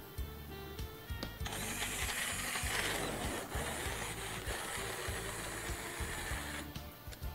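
Electric stick (immersion) blender whirring as it purées a thick pot of chickpea-and-meat qeema. It starts about a second and a half in and cuts off near the end.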